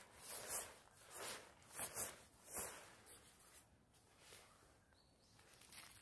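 Padded jacket rustling as the arms swing and stretch: about five quick swishes in the first three seconds, then only faint rustling.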